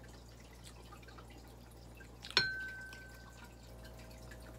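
Faint small clicks of fingers picking apart fried tilapia on a plate. About halfway through comes a single sharp clink of something hard against tableware, which rings clearly and fades over about a second.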